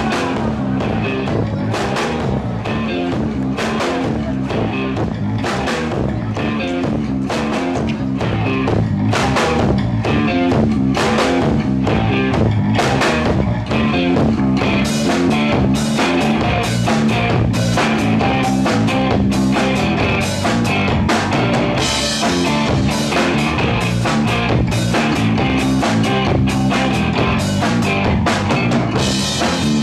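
Rock band playing: drum kit keeping a steady beat with bass drum and cymbals under electric guitar and bass, with cymbal crashes about two-thirds of the way through and again near the end.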